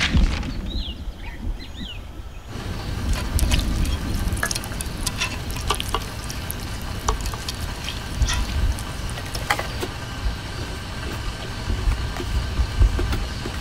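Birds chirping for the first couple of seconds. Then kitchen clatter: many small clicks and clinks of utensils and containers over a steady hiss.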